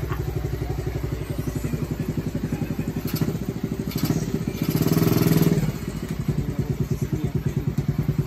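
Custom Monkey mini bike's small single-cylinder engine idling with an even, rapid putter, revved briefly about five seconds in before settling back to idle.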